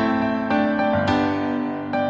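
Background music: a piano playing slow chords, a new chord struck about every half second and left to ring.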